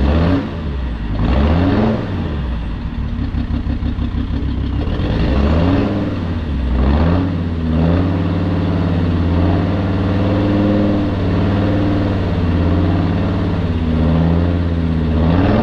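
Jeep Grand Cherokee WJ's 2.7 CRD five-cylinder common-rail diesel, freshly started, being given several light revs from idle, the engine speed rising and falling again and again and held a little raised for a few seconds in the middle.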